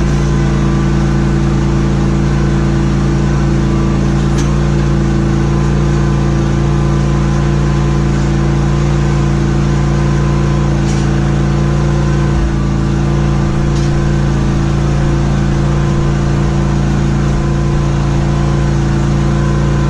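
Lawn mower engine running at a steady speed, an even hum that holds its pitch throughout.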